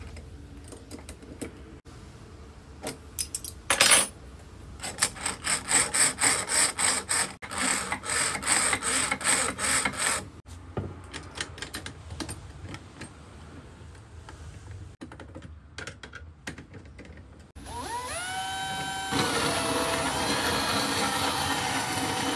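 A series of short clicks and knocks, two or three a second, followed near the end by a drill driver's motor spinning up with a rising whine and then running steadily, powering a homemade sharpening machine.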